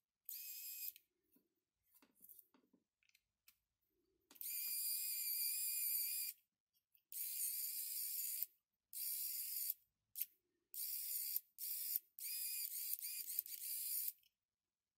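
Small geared motor of a homemade 3D-printed cordless electric screwdriver running in about seven short bursts, a high-pitched whine each time, with small clicks and handling noises in the gaps.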